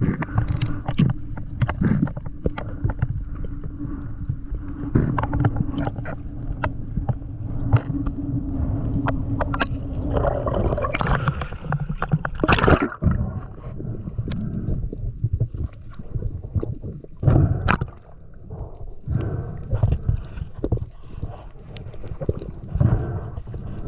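Underwater sound heard through a diver's camera housing: muffled water movement and gurgling with frequent clicks and knocks, over a steady low hum in the first half. About halfway through, a louder rush of water with a sharp knock.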